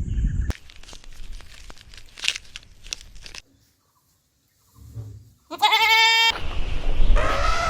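Goat bleating twice near the end, two loud pitched calls in quick succession, the second rising and falling in pitch, after a few seconds of faint rustling and a short silence.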